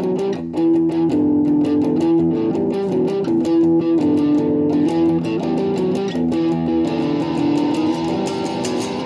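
Fernandes Revolver Pro electric guitar strummed and picked through an amplifier, playing a chord progression in the instrumental part of a song.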